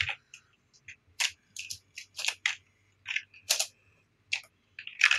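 Computer keyboard keys clicking in short, irregular bursts of typing.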